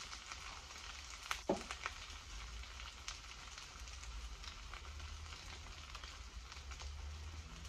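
An egg omelette with cheese, onion and tomato sizzling gently in a frying pan over a gas burner, with a soft, steady crackle. There is a single knock about a second and a half in.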